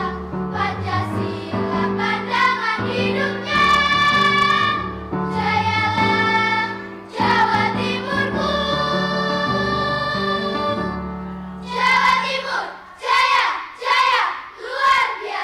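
Choir singing with instrumental accompaniment. Near the end the accompaniment stops and a few short, loud vocal phrases follow.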